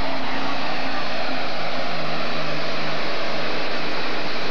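Super stock pulling tractor's turbocharged, alcohol-burning engine running flat out under load as it drags the weight-transfer sled. It makes a loud, steady drone whose low tones shift a little in pitch about two seconds in.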